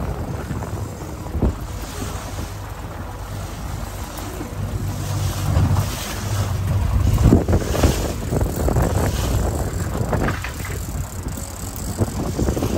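Wind buffeting the microphone over a boat under way while trolling: a Mercury outboard motor running steadily and the rush of its wake water.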